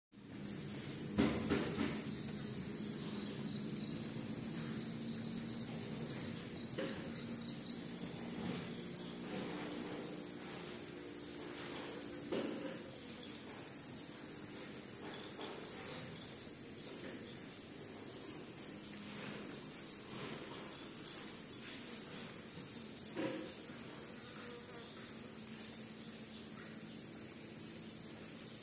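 Cricket chirping in a steady, continuous high-pitched trill, with a few faint knocks along the way.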